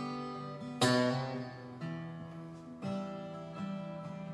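Acoustic guitar chords strummed, a new chord struck about once a second and left to ring, the strongest strum about a second in.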